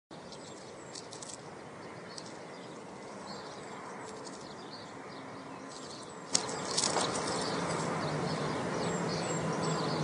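Steady road traffic noise with birds chirping high above it. About six seconds in, after a sharp click, the traffic gets louder and a low engine hum joins it.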